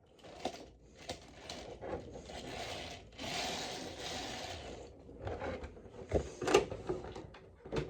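Toy packaging rubbing and scraping as toy train engines are worked loose from their box, with a denser stretch of scraping from about three to five seconds in and a few sharp clicks.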